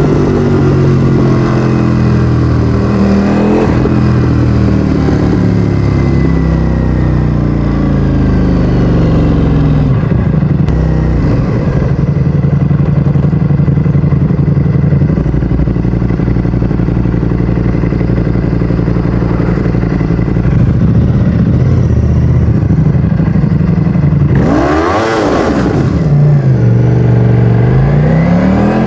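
Ducati Streetfighter V4S's 1103 cc Desmosedici Stradale V4 engine with an Akrapovic exhaust, being ridden: the engine note falls as it slows at first, holds steady for a long stretch, swings sharply up and back down about 25 seconds in, then climbs again as it accelerates near the end.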